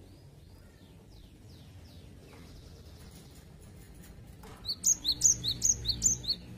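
Cinereous tit (gelatik batu) calling: faint thin downward whistles, then near the end a quick run of about eight loud, sharp high chirps, some five a second.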